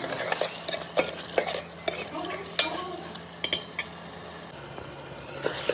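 A metal utensil stirring chicken in a frying pan: several sharp clinks and scrapes against the pan over a steady frying sizzle.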